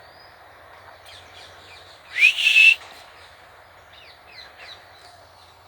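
A rose-ringed parakeet gives one loud, harsh screech about two seconds in, rising in pitch and then held briefly. Fainter short chirping calls follow near the end.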